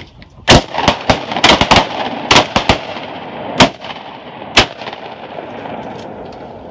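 Several duck hunters' shotguns firing a ragged volley of about ten shots in the first five seconds at a flock of ducks overhead. The reports overlap and then fade in a long echo.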